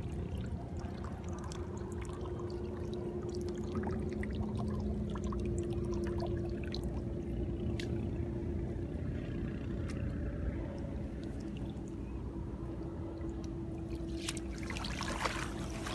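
Shallow water trickling and pouring through flooded grass, with scattered small splashes and a faint steady hum underneath. Near the end a louder rush of water comes in.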